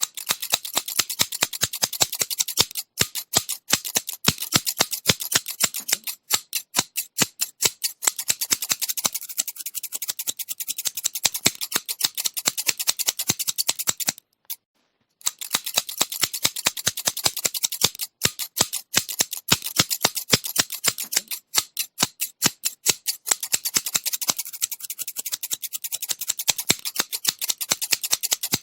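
Scissors snipping over and over in a rapid, crisp run of metal-blade clicks, with a brief pause about halfway through.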